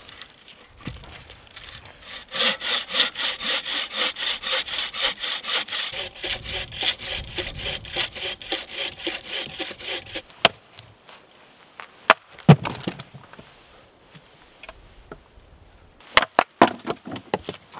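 Birch log being cut with a hand saw: quick, even back-and-forth strokes for about eight seconds. A few sharp knocks follow, and near the end comes a quick run of strikes on wood as a round is split on a chopping block.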